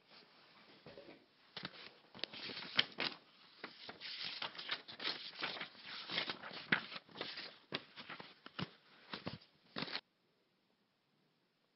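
Dense, irregular rustling and crackling that stops abruptly about ten seconds in.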